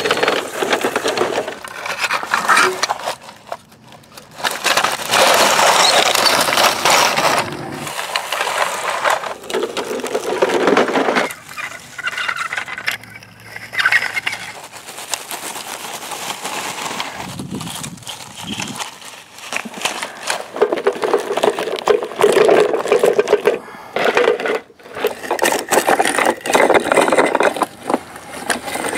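Plastic toy trucks pushed along over dry leaf litter, dirt and grass: wheels crunching through the leaves and the plastic bodies rattling, in uneven stretches with short pauses.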